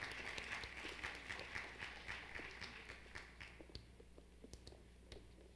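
Audience applauding, the clapping thinning and dying away about three and a half seconds in, leaving a few scattered claps and taps.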